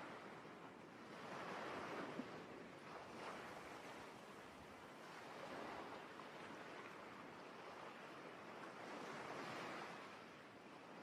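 Ocean waves surging and receding on a shore, a soft swell of surf about every three to four seconds.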